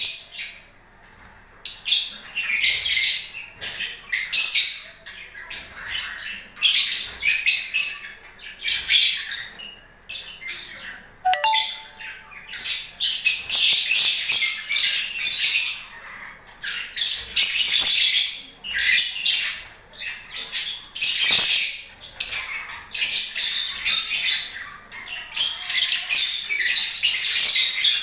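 Lovebirds chattering: rapid, high-pitched chirps and squawks in repeated bursts, starting about a second and a half in, with short pauses between.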